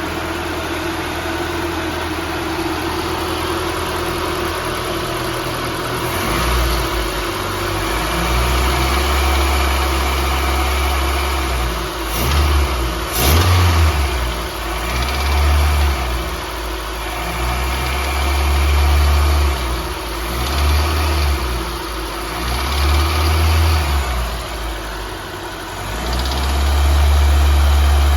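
Nissan KA24E 2.4-litre four-cylinder engine in a Hardbody D21 pickup idling steadily, then revved and held on throttle several times. It knocks under throttle, cause unknown to the owner, since the timing chain guides, tensioner and valve lash have all been checked.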